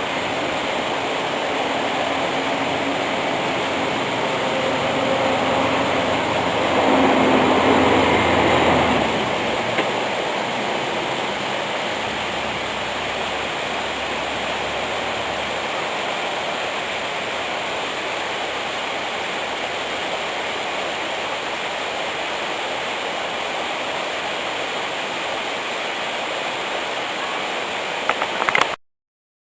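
Waterfall's rushing water, a steady, even noise that swells briefly about seven seconds in and cuts off abruptly near the end.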